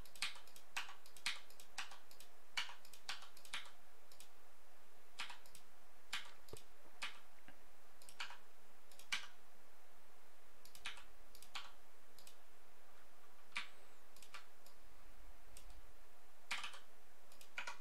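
Computer keyboard keys and mouse buttons clicking as shortcuts are pressed, single sharp clicks at irregular intervals, a few every couple of seconds.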